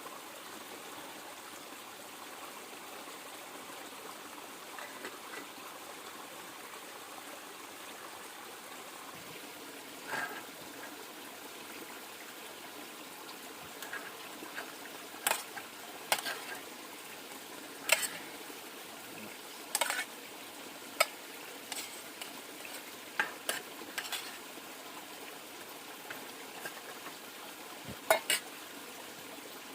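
Metal utensils clinking and scraping against a pot or pan in scattered sharp clinks, starting about a third of the way in, over the steady hiss of running river water.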